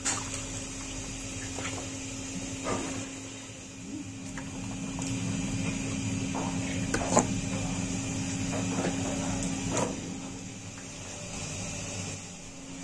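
Raw animal lungs being handled and rinsed by hand in a plastic basin of water: scattered wet splashes and squelches over a steady low machine hum.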